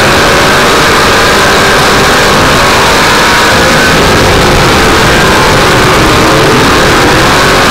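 Race car engines running hard at high revs, loud and distorted, with the engine pitch wavering up and down.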